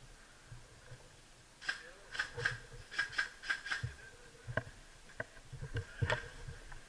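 Sharp clicks and knocks: a quick, irregular run of about eight starting a couple of seconds in, then a few scattered ones near the end.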